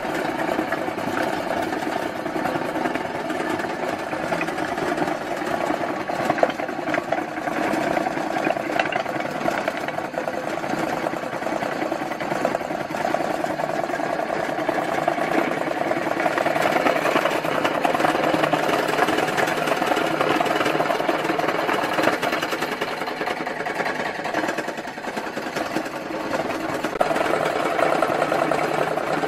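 Homemade electric jaw crusher running steadily, its belt-driven flywheel turning and the steel jaws clattering rapidly as they crush pieces of white building block into gravel.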